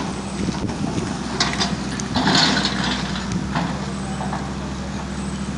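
A large engine running steadily with a low drone, with a short hiss about two seconds in.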